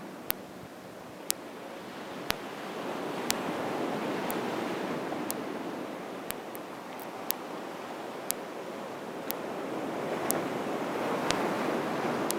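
Sea surf breaking and washing up a beach, still running after a day of strong wind, swelling twice, about four and about eleven seconds in. A sharp short tick sounds about once a second over it.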